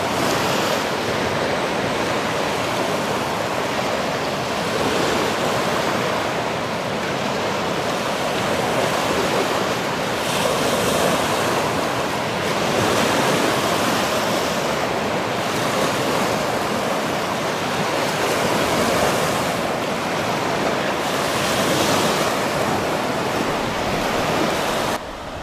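Katun river whitewater rushing and churning through the standing waves of a rapid, a steady rush of water heard close up; it drops away suddenly near the end.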